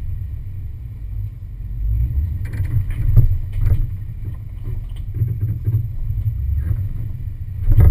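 Low, uneven engine rumble of an off-road 4x4 crawling slowly over rocks, with wind buffeting the microphone. A few knocks and clatters come about three seconds in and again near the end.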